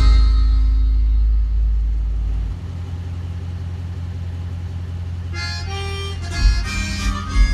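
Loud music with heavy bass that drops away about two and a half seconds in, leaving a steady low noise, before melodic music comes back near the end.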